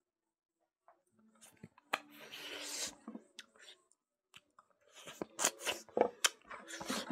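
Close-up eating sounds of smoked pork: chewing, with a run of sharp crunches and clicks in the last couple of seconds.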